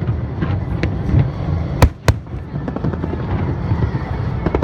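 Fireworks display: a dense, continuous crackle of small bursts over a low rumble, with two sharp loud bangs in quick succession about two seconds in. Music plays along with the show.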